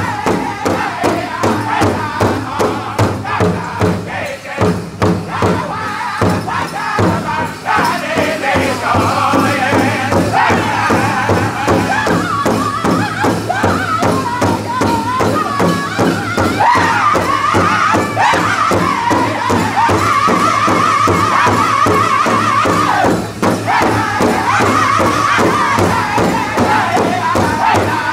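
Northern-style powwow drum group singing together over a steady unison beat on one large hide powwow drum, struck by many drumsticks at once.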